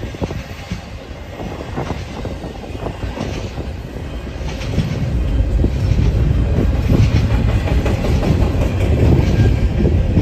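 Double-stack intermodal freight train rolling past, its wheels clicking over rail joints over a continuous rumble that grows louder and heavier about halfway through.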